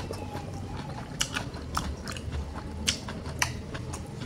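Crunchy breaded coating of sour cream and onion fried chicken being chewed close to the microphone, with a scatter of sharp crackles at irregular intervals.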